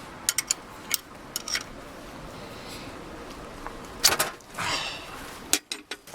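Sharp metal clicks and clinks of tools and bolts against the tractor while a starter motor is fitted, scattered and irregular, with a louder cluster of clinks about four seconds in.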